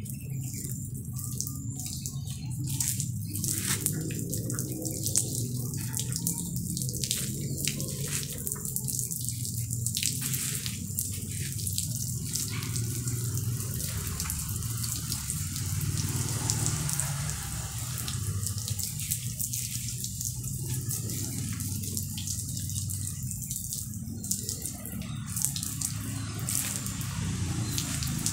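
Garden hose spraying water over a soaped bicycle frame to rinse it, with water splashing and dripping, over a steady low hum.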